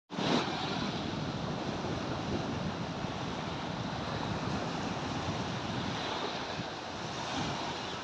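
Small sea waves washing onto a sandy beach, a steady rushing surf.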